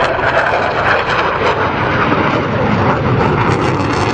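Jet noise from a Panavia Tornado's two RB199 turbofan engines as the jet flies a display pass overhead. The noise is loud and steady.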